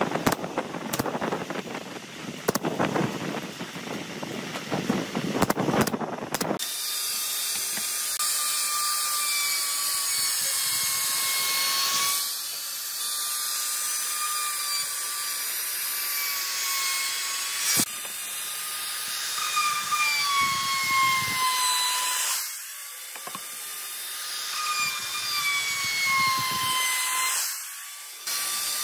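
A pneumatic nail gun fires a quick series of shots for about the first six seconds. Then a table saw runs with a steady whine that dips in pitch several times as boards are fed through the blade.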